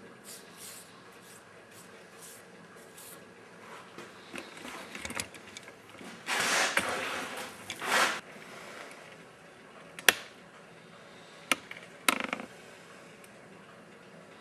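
Workshop handling sounds: a couple of seconds of scraping and rustling about halfway through, then three sharp knocks, the first and loudest about two-thirds of the way in and two close together near the end.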